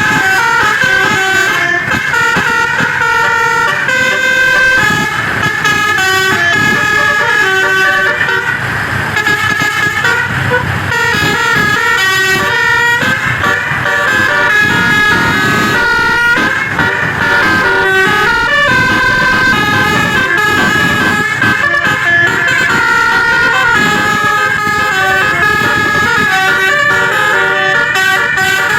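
Bus 'basuri' telolet horn, a multi-note musical air horn, playing a continuous tune of quick stepped notes.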